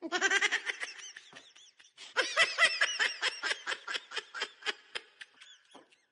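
High-pitched laughter in rapid, quick-fire ha-ha pulses, one short bout and then a longer one from about two seconds in that fades away near the end.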